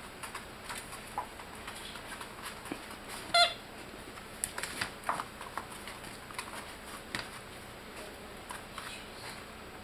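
A 26-day-old puppy gives one short, high squeak about three seconds in, over soft scratching and clicking as the puppies move about.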